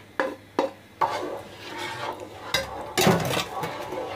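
A wooden spatula stirring milk and soaked rice in a pan, with a couple of sharp knocks in the first second, then uneven scraping strokes that are loudest about three seconds in.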